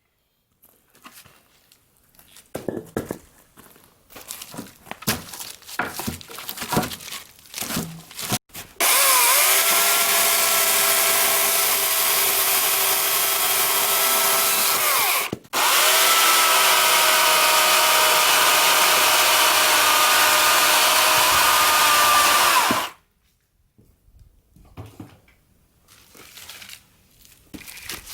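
Knocks and clatter of handling at first, then a small electric blower running hard in two long stretches of about six and seven seconds, separated by a brief stop: a loud rush of air with a steady whine over it. It cuts off sharply near the end.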